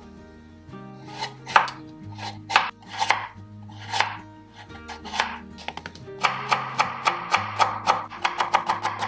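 Chef's knife cutting a carrot on a cutting board: separate slicing strokes at first, then from about six seconds in a quicker run of chops, about four a second, as the slices are cut into matchsticks. Background music with steady low notes underneath.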